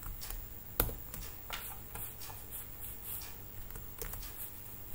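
Low steady room noise with a few faint, short clicks, one sharper click about a second in.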